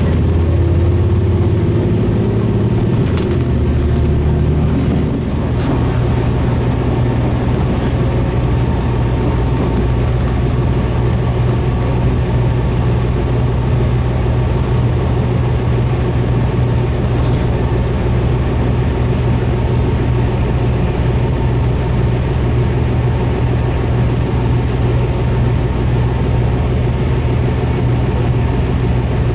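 Diesel railcar running on the line, a steady engine drone with rail noise. The engine note shifts during the first five seconds, then holds steady.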